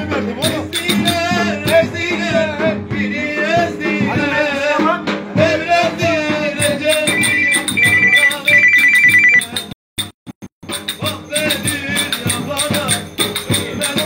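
Turkish folk dance music (oyun havası) with a clicking beat and a wavering lead melody. About seven seconds in, a beeping ringtone-like tone pulses three times over the music, then the sound cuts out briefly before the music returns.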